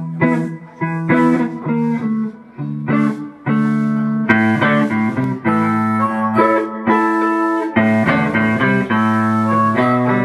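Live blues band playing a slow blues: electric guitar and blues harmonica play spaced-out phrases with short pauses, and about four seconds in the bass and the rest of the band come in fuller and steady.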